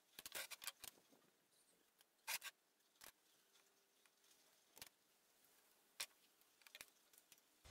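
Faint, scattered clicks and light taps: a marker, steel rule and combination square are handled against a thick steel block while it is marked out. There is a quick cluster of clicks in the first second, then single taps about once a second.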